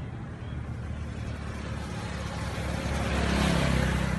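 A motor vehicle engine running and passing, its sound swelling to a peak about three and a half seconds in over a steady low rumble.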